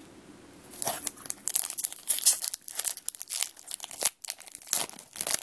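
Foil Pokémon X&Y Furious Fists booster pack being torn open and crinkled by hand: a dense run of sharp crackles starting about a second in.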